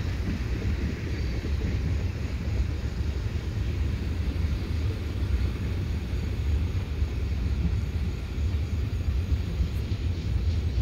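A steady low vehicle rumble with no distinct events.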